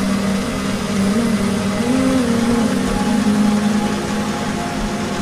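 Compact rice milling machine running: a steady motor hum over the hiss and rattle of milling, with a few brief swells in pitch.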